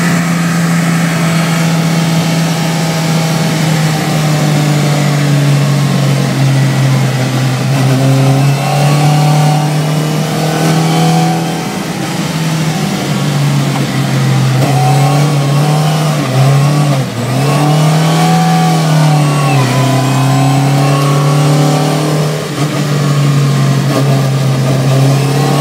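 Volvo 242's engine heard from inside the cabin under hard driving, its pitch stepping up and down several times as the revs change. About two-thirds of the way through the note briefly drops right away, then swells back up.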